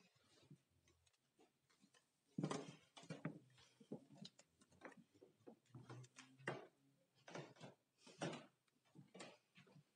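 Faint, irregular knocks, clicks and rustles, a few of them louder, spaced roughly a second apart in the second half.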